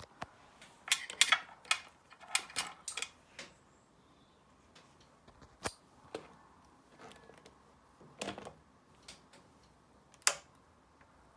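Irregular sharp clicks and short light rattles from a motorcycle's switches and wiring being worked during an electrical test. They are bunched in the first three or four seconds, then come singly every couple of seconds.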